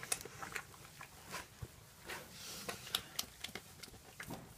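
Piglets rooting in straw and hay bedding: the dry hay crackles and clicks irregularly, with a few sharper snaps.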